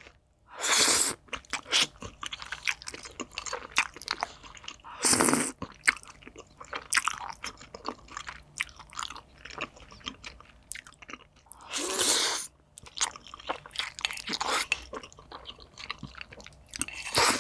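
Close-miked eating of cream spaghetti with caviar: steady chewing with many small wet clicks, and four longer, louder bursts of noise spaced through the stretch.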